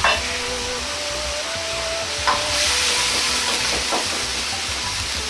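Braising liquid hissing and simmering in a wok over a gas burner, with a metal ladle clinking against the wok about three times as the chicken and boiled eggs are stirred.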